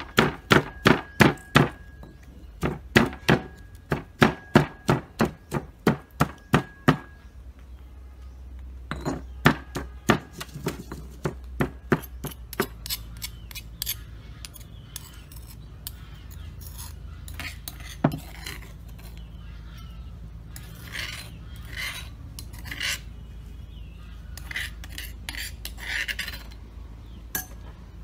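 Knife chopping on a cutting board in quick regular strokes, about three a second, with a faint metallic ring: garlic and chili being chopped for a soy dipping sauce. The chopping stops, starts again briefly, and then gives way to scattered light clinks and scraping of utensils.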